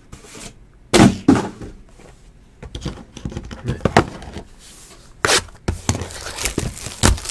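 Cardboard trading-card boxes being handled and set down on a table: a few separate knocks and thunks with softer handling noise between them.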